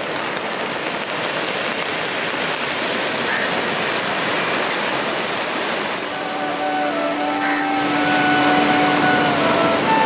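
Heavy surf of a rough sea breaking steadily, a continuous rushing noise. About six seconds in, held musical notes come in over it, with a steady low tone under a slowly stepping melody.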